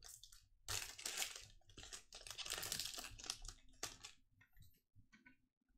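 Foil wrapper of a 2021 Contenders football card pack crinkling and tearing as it is ripped open by hand, a run of crackly rustles that thins out near the end.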